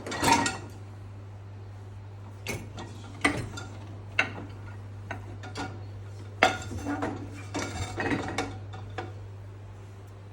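Dishes and cutlery clinking and knocking as they are set into a dishwasher's racks: a string of separate sharp clatters, some in quick clusters.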